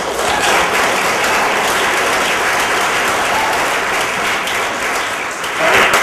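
Audience applauding steadily, with a woman's voice coming back in near the end.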